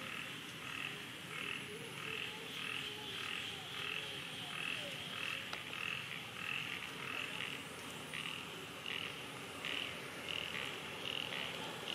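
A small animal calling in a steady series of short pulses, about two a second, over a low outdoor hiss.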